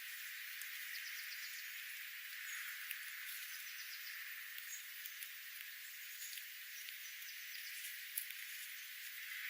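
Dense, steady twittering of many small birds, with a few higher chirps and light clicks standing out.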